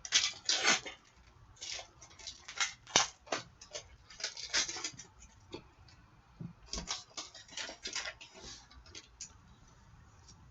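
An Upper Deck Artifacts hockey card pack being torn open and its cards handled: irregular crinkles, rips and light scrapes of the wrapper and card stock, loudest near the start.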